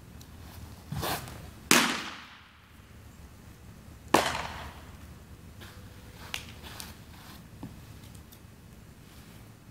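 A softer knock about a second in, then two loud, sharp smacks of a baseball into a leather glove about two and a half seconds apart, each echoing through a large indoor hall.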